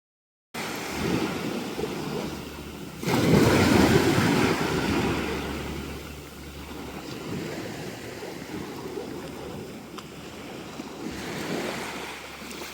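Sea waves washing onto the beach, with wind buffeting the microphone. The sound cuts in abruptly after half a second of dead silence and swells loudly about three seconds in.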